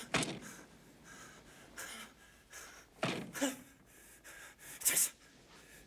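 A man gasping and moaning in his sleep, several sharp, harsh breaths spaced a second or more apart, in the throes of a nightmare.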